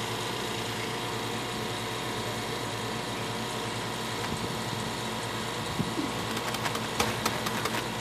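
A steady mechanical hum from running shop equipment, with a few light clicks in the last couple of seconds.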